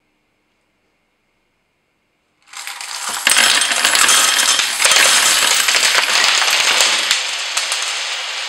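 A large number of metal coins poured onto a wooden shelf, clattering and jingling continuously as they pile up and scatter. It starts suddenly about two and a half seconds in, after near silence.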